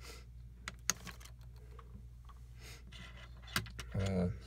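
A few small, sharp clicks from hand tools and a super glue bottle being handled, about a second in and again near the end, over a steady low hum.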